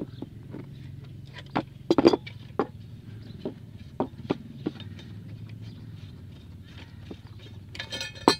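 Adjustable wrench and metal valve fittings clicking and knocking against a steel gooseneck pipe and a plywood board as the trough valve is unscrewed from the gooseneck: scattered sharp taps, with a cluster of the loudest about two seconds in.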